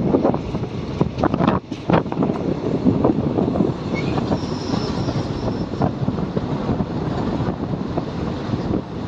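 Passenger express train running on the track, a steady rumble with irregular knocks of the wheels over the rails. A faint high squeal comes about halfway through.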